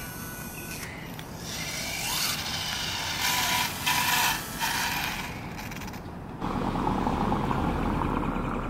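Traxxas Slash short-course RC truck with a brushless Castle Creations SCT motor on a 2-cell battery speeding along the brick pavers, its motor and drivetrain whining and rattling as it passes. About six and a half seconds in, a full-size car drives by close and becomes the louder sound.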